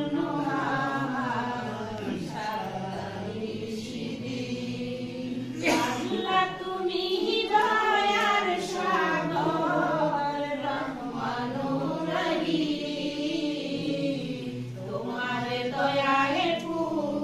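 A small group of women singing a song together, unaccompanied. A brief sharp knock is heard about six seconds in.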